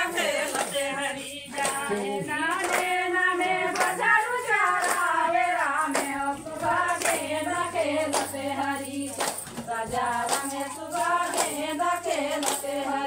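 A group of women singing a Suva (Suga) folk song in chorus, keeping time with steady, evenly spaced handclaps.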